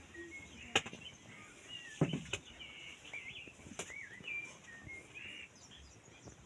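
Birds chirping in many short, curling calls, thinning out near the end, with a few sharp clicks or knocks in the first four seconds.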